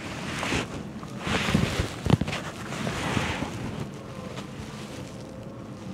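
Wind gusting on the microphone in three swells, with a few soft knocks about two seconds in.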